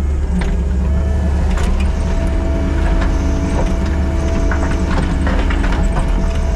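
Kubota SVL97-2 compact track loader's diesel engine running steadily under load while grading, with a steady whine above the engine and scattered clanks and knocks from the machine as it pushes material.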